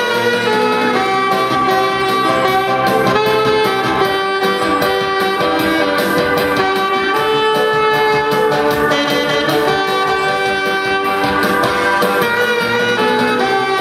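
Saxophone playing a melody of held notes, over a recorded backing track with a steady beat.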